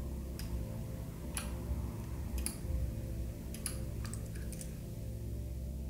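Scattered single clicks from a computer mouse and keyboard being worked, roughly one a second with a few closer together about four seconds in, over a low steady hum.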